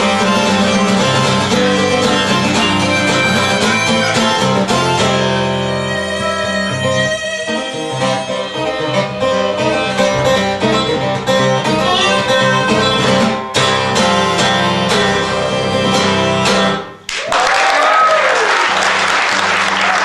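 Live acoustic blues played on guitar and fiddle, ending abruptly about three seconds before the end. Audience applause and a cheer follow.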